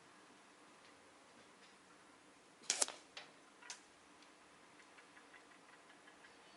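Hatsan Striker Edge air rifle: a sharp double clack a little under halfway through, followed by two fainter sharp clicks within the next second, over faint scattered ticking.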